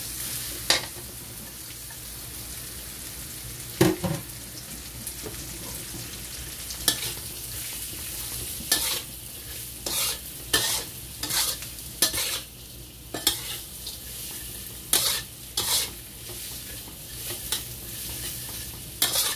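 Julienned carrots and mushrooms sizzling in oil in a wok as a spatula stir-fries them, each stroke scraping the pan. The strokes are sparse at first and come about once a second in the second half, over a steady hiss.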